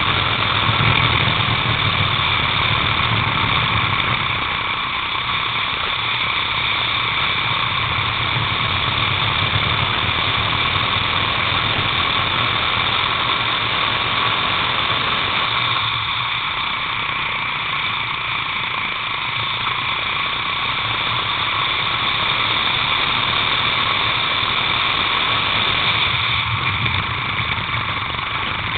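Racing kart engine heard from the kart itself, running at steady high revs as a high whine with little change in pitch, a little quieter twice mid-lap.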